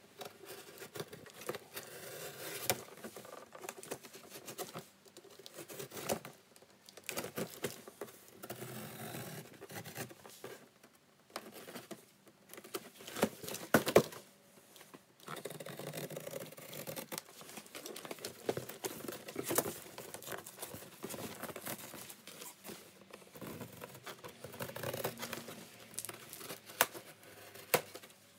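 Utility knife slicing through the side of a corrugated cardboard box in irregular scratchy strokes, with cardboard rustling as the box is shifted about. There is a sharper knock about halfway through.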